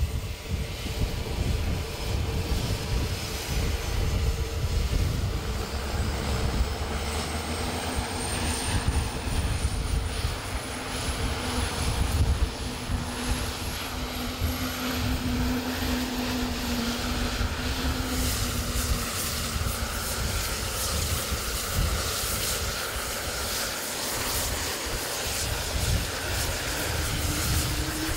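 CH-148 Cyclone helicopter's turboshaft engines starting up: a high turbine whine rises steadily in pitch for about eighteen seconds over a low rumble while the rotors begin to turn slowly, then the sound broadens into a steady rushing engine noise.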